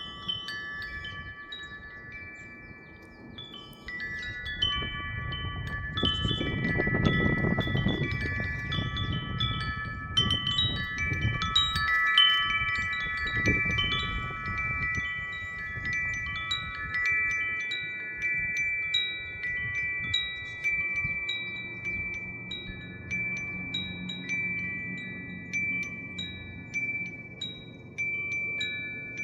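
A wind chime with several tuned tones, struck irregularly by the wind and ringing on. Gusts of wind rush past, loudest about a third of the way in.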